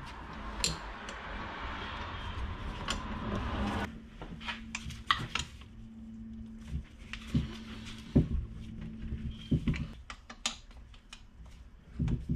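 Metal clicks and clinks of a wrench being fitted to and worked on the 10 mm nuts of a 1st-gen Cummins vacuum pump, as hands handle the pump. Scattered sharp clicks follow a rustling noise in the first four seconds.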